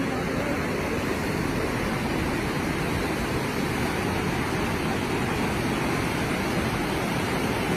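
Swollen river of muddy floodwater rushing steadily, a continuous even rushing noise with no breaks.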